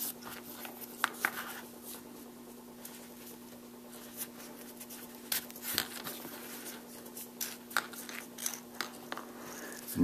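Waxed thread being drawn through the stitch holes of a small veg-tan leather piece during hand stitching with two needles: faint scattered clicks and short rasps of thread, needle and fingers, over a steady low hum.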